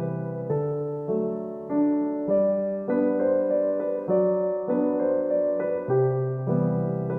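Background solo piano music, a gentle tune of evenly spaced chords and notes.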